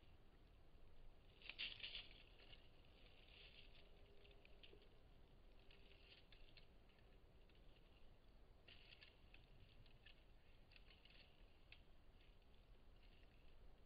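Faint, irregular crackling and rustling of twigs and dry leaves as a whitetail buck works an overhanging branch with its head and antlers.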